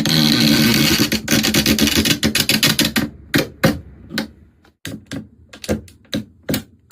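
A sudden, dense clatter of sharp clicks and taps, thinning after about three seconds into single taps a few to the second.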